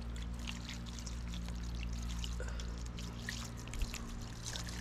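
Water being poured steadily onto freshly grated coconut to extract coconut milk, with small splashes through the pour.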